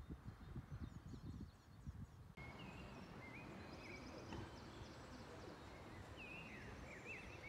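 Faint outdoor ambience. Irregular low rumbling at first, then an abrupt change about two seconds in to a steady hiss with small birds chirping and warbling repeatedly.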